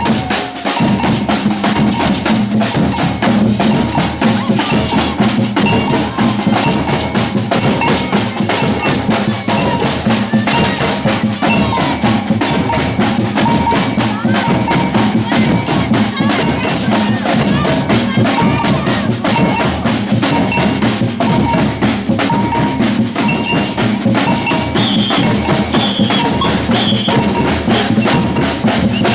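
Batucada samba percussion ensemble playing a dense, continuous rhythm on drums, with bell-like metal strokes.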